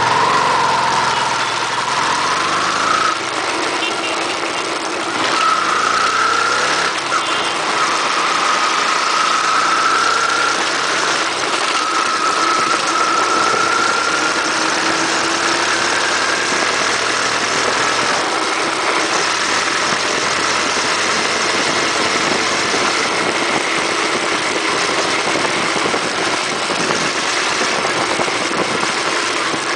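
Yamaha FZ16's 153 cc single-cylinder four-stroke engine pulling through the gears, its note climbing and dropping back at each shift several times in the first fifteen seconds, then holding steady at cruising speed. Heavy wind rush on the microphone from the bike's speed runs under it.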